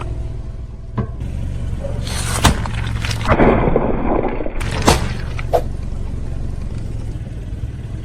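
Car engine running low and steady while a tire rolls over and crushes objects: several sharp cracks and a crunching, crackling stretch of about a second in the middle.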